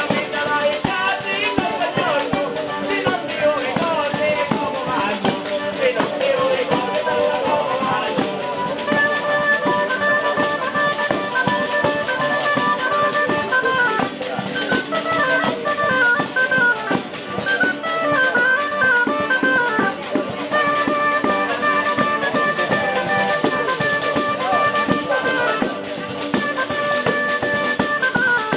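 Live Calabrian folk music: a pipita (traditional oboe) plays an ornamented, fast-moving melody over organetto and guitar, with a tamburello jingling a fast steady beat.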